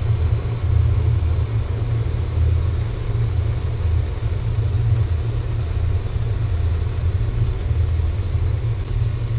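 Small aluminium kettle boiling hard on a stove, steam hissing steadily from its spout over a continuous low rumble.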